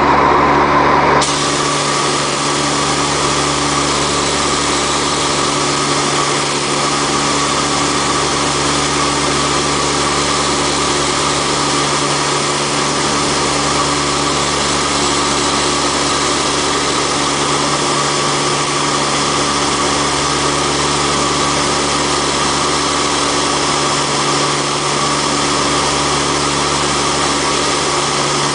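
Antonov An-32's twin turboprop engines and propellers droning steadily, heard inside the cockpit in flight: a constant hum of several steady tones over an even rushing hiss, slightly louder for the first second.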